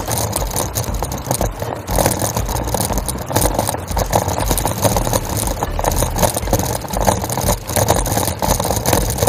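Bicycle rolling over cobblestones, a dense rattling and rolling noise picked up by a camera mounted on the handlebar.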